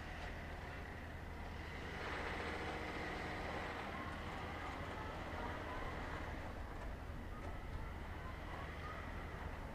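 Steady distant machinery drone with a low hum, a thin steady high whine and a light hiss that swells a little about two seconds in.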